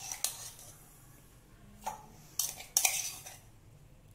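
Metal spoon clinking and scraping against a steel tumbler and glass tumblers while crushed lemon and mint is spooned out. There are a few short knocks, near the start, about two seconds in, and a loudest cluster a little before three seconds.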